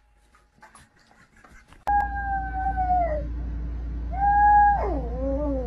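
A small dog howling, starting about two seconds in after near quiet: a long held howl that sags in pitch at its end, then a second howl that breaks into wavering, falling notes. A steady low hum lies under it.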